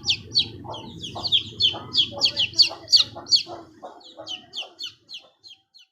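Young chicks, about two weeks old, peeping: a quick run of short, high, downward-sliding cheeps from several birds, thinning out and fading near the end.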